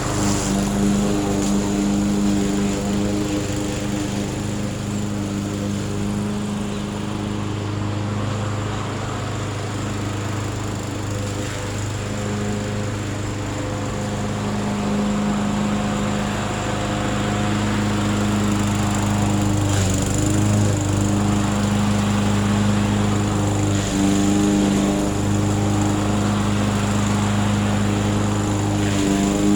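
Murray 22-inch self-propelled 2-in-1 lawn mower's engine running steadily. Its level dips slightly in the middle and swells again later.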